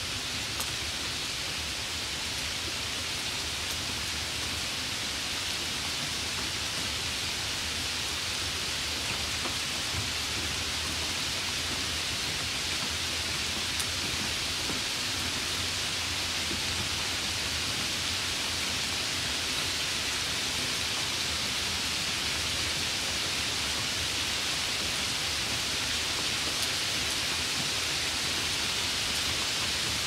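Light rain falling steadily: an even hiss of many drops, with a few faint single drop ticks now and then.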